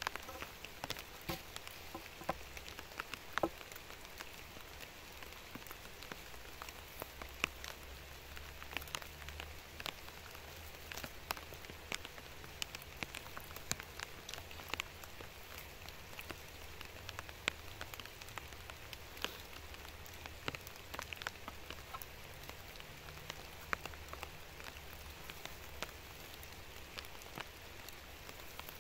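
Rain falling on wet leaf litter: a steady patter dotted with many scattered, sharp drop ticks at irregular intervals.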